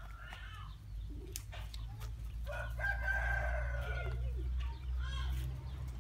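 A rooster crowing once, a long held call of about two seconds from around the middle, followed by a shorter falling call.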